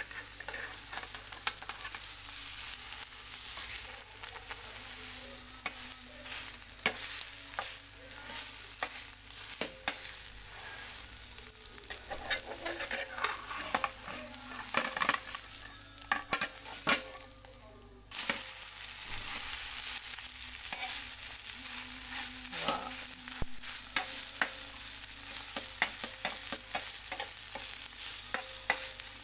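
Omelette sizzling in an aluminium frying pan, with a slotted spatula repeatedly scraping and knocking against the pan. The sizzle drops out briefly a little past halfway, then carries on.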